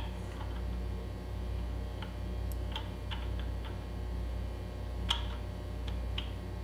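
Scattered light metallic clicks as a nut is turned by hand onto a quad axle spindle whose damaged threads have just been cleaned up with a thread chaser, over a steady low hum. The sharpest click comes about five seconds in.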